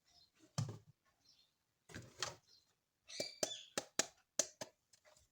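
Sharp clicks and taps of hard plastic toy pieces and packaging being handled: a single tap, a pair about two seconds in, then a quick run of six or seven clicks.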